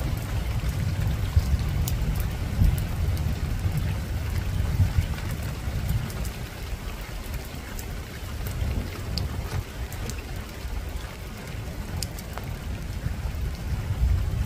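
Rain falling on a rooftop: a steady hiss with scattered sharp drips, over a deep continuous rumble.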